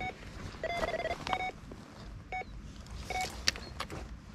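Electronic carp bite alarm giving short, irregular beeps as line is pulled from the reel: a run, with a carp taking the bait. There is a sharp click about three and a half seconds in.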